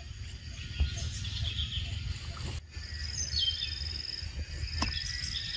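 Birds calling over a steady low rumble, with two rapid high trills, one a little past halfway and one near the end, and a few short chirps.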